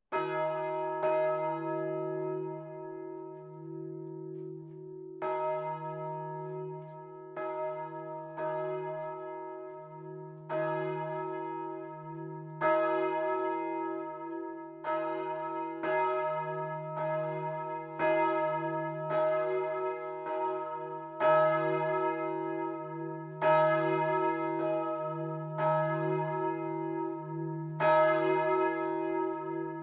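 The two bronze church bells, Paccard's 1885 C bell (about 2 t) and Wauthy's 1922 E-flat bell (about 1.1 t), start swinging in full peal. Two opening strokes are followed by a gap of about four seconds. Then strokes come about once a second, each clang ringing on over a steady low hum.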